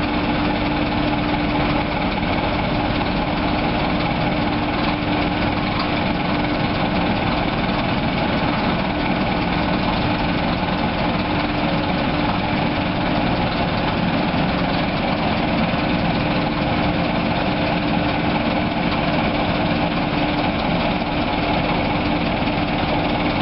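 Engine of a small Plymouth mine locomotive running steadily as it creeps along the track, with an even, unchanging hum throughout.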